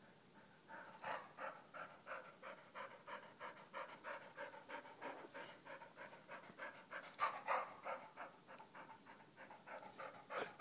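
A dog panting rapidly and steadily, about four to five breaths a second, starting about a second in.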